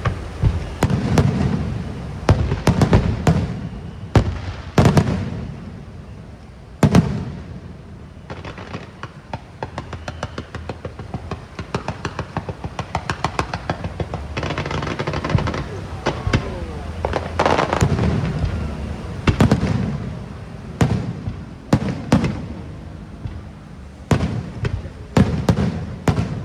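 Aerial fireworks shells bursting with loud sharp bangs at irregular intervals, with a stretch of rapid crackling pops, several a second, in the middle.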